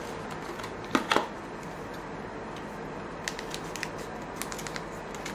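Trading cards and their pack being handled: a couple of sharp clicks about a second in, then scattered light ticks and rustles.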